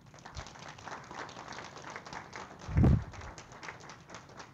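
Audience clapping: many hand claps overlapping irregularly. About three seconds in, a single low thump is the loudest sound.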